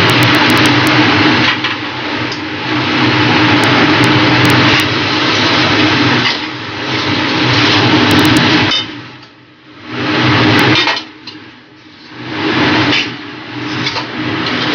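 Steel spatula scraping and tossing rice in a steel kadhai as the fried rice is stir-fried over a gas flame, with a steady frying hiss. The noise drops away briefly twice in the second half.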